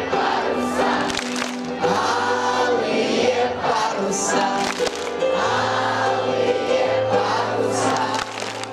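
A group of voices singing a camp song together over an instrumental accompaniment with a sustained bass line that changes note every second or two.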